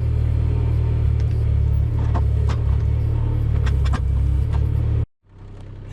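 Rippa mini excavator engine running steadily under work, with several sharp knocks and clacks of the bucket against stones as it digs them out. The sound cuts off abruptly about five seconds in and comes back quieter.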